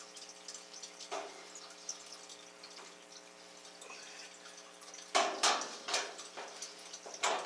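Water dripping, over a steady low hum. About five seconds in come several louder rushing, splashing noises.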